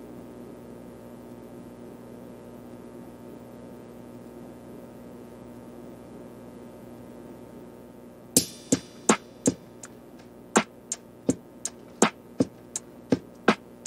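Background music in a quiet passage: a faint steady hum-like drone for about eight seconds, then a run of sharp electronic percussion clicks, about three a second.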